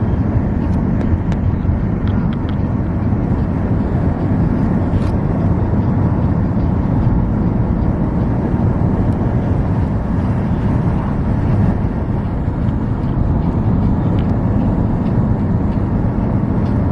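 A car driving along a road: a steady, even rumble of tyre and engine noise.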